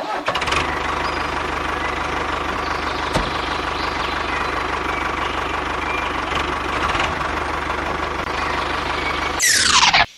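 Small engine running steadily for about nine seconds; near the end a quick falling whine, then it cuts off abruptly.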